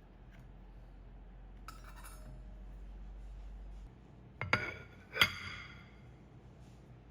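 Glass or ceramic tableware set down on a table: a faint clink, then two sharp ringing clinks about half a second apart, the second the loudest. A low hum runs underneath and stops just before them.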